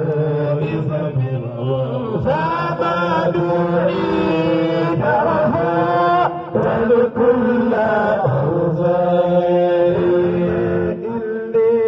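Male voices chanting a melodic recitation into microphones, amplified through a PA system, with long held notes and brief breaks for breath about halfway through and near the end.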